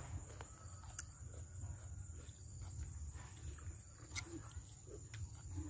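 Quiet eating sounds: chewing and soft mouth noises with a few faint clicks, over a low steady rumble.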